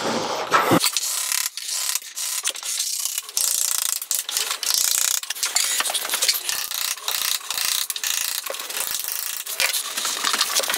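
A steel chisel levering the glued laminate edging strip off the edge of a chipboard worktop. A dense, continuous run of rapid clicking, cracking and scraping as the strip is worked loose along the edge.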